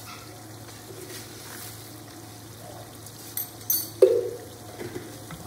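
Wet spice masala sizzling gently as it is fried in a wok with a little water, with a spatula stirring through it and a sharp knock against the pan about four seconds in.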